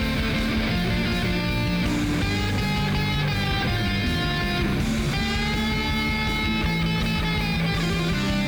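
Background rock music with distorted electric guitar.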